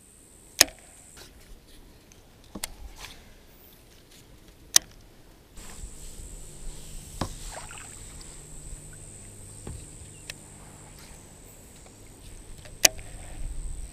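Sharp knocks and clacks of a paddle and fishing rod being handled against a plastic kayak, about six separate hits spread over the stretch, with gentle kayak and water movement between them. A steady high insect drone sits behind and grows louder about halfway through.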